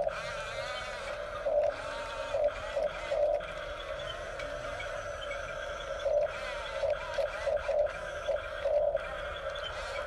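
Electric drive motors and plastic gearboxes of a Huina 1569 RC bulldozer whining steadily as it maneuvers, the pitch wavering. The whine swells briefly several times, at irregular spacing, with bursts of throttle.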